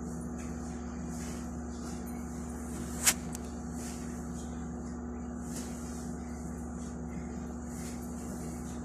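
Steady low electrical hum with faint rustling of sheets and pillows as a small dog moves about on a mattress, and one sharp click about three seconds in.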